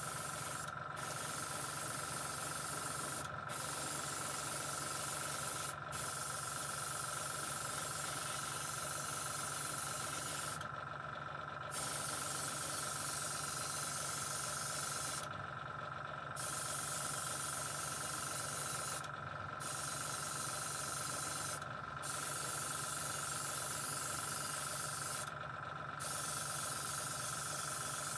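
Airbrush spraying red lacquer paint, a steady hiss of air and paint that cuts out briefly about eight times as the trigger is let off and pressed again.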